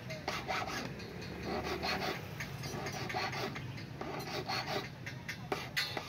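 Flat steel hand file rasping over metal in quick repeated strokes, about two to three a second, as a key is shaped by hand.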